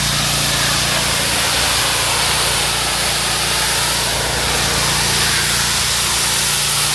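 Gas-engine pressure washer running steadily under load, with high-pressure water spraying against a hard surface in a continuous, even hiss.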